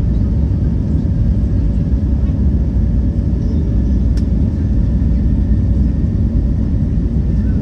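Airliner cabin noise inside an Airbus A320neo while taxiing: a steady low rumble from the engines at taxi power and the rolling gear. A single light click sounds about four seconds in.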